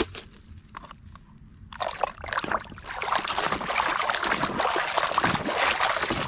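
Muddy water splashing and sloshing in a plastic tub as a toy vehicle is swished and scrubbed underwater by hand. A few light knocks at first, then vigorous, continuous splashing from about two seconds in.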